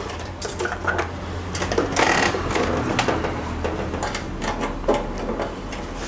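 Steel Allen key clicking and scraping against a brass air-conditioner service valve as it is fitted into the valve's Allen screw and worked: a handful of light metallic clicks and short scrapes, busiest about two seconds in, over a steady low hum.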